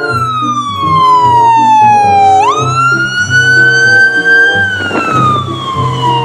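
Siren wailing in long slow sweeps: the pitch slides down, jumps back up about two and a half seconds in, rises a little and slides down again. Background music plays underneath.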